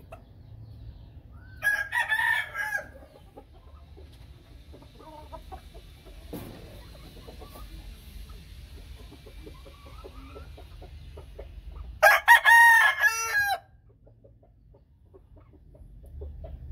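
Gamefowl rooster crowing twice, about ten seconds apart, with faint clucking between the crows.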